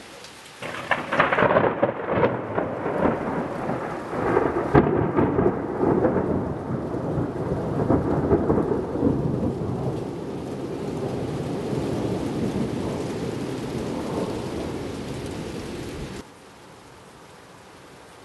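Thunder from a close lightning strike: a sudden crackling clap about half a second in, a second loud clap around five seconds, then a long rolling rumble that cuts off suddenly about sixteen seconds in. Rain hisses underneath.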